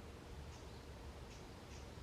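Faint, brief high chirps of wild birds, a few in quick succession, over a steady low rumble of background noise.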